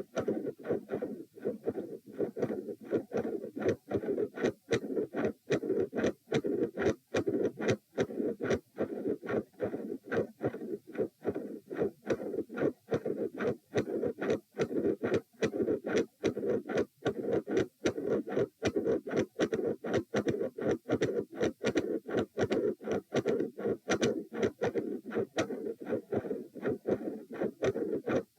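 Heart sounds heard through a chest recording: a fast, steady run of short thuds, with a continuous whooshing between the beats from the midsystolic murmur.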